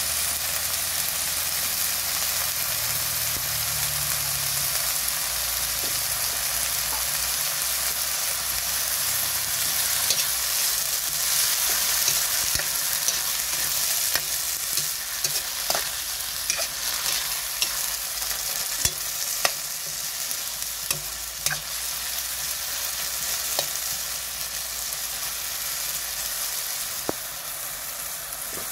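Madre cacao (kakawate) flowers and canned sardines sizzling steadily in a metal wok, with a metal spoon scraping and clicking against the pan as they are stirred.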